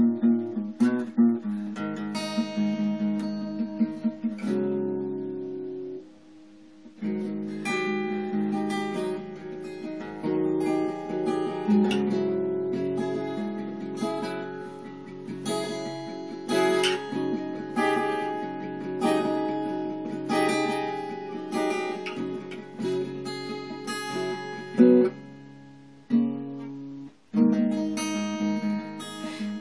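Acoustic guitar strumming chords in an instrumental passage of a folk song, with no singing. The playing breaks off briefly about six seconds in and again near the end.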